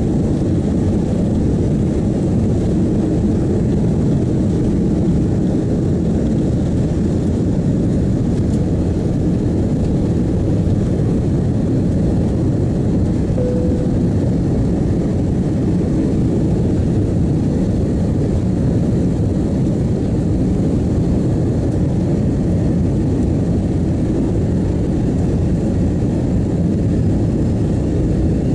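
An Airbus A330-200's jet engines at takeoff thrust, heard from inside the passenger cabin: a steady, loud, low rumble through the end of the takeoff roll, liftoff and initial climb.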